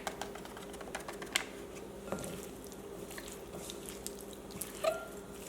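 Raw shrimp being tossed with cornstarch in a bowl: soft, irregular taps and clicks, one sharper tap about a second and a half in, over a steady low hum.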